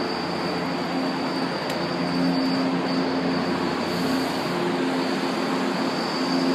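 São Paulo Metro subway train running along the station platform: steady rumble of the cars, with a constant high whine and lower humming tones from the train that come and go.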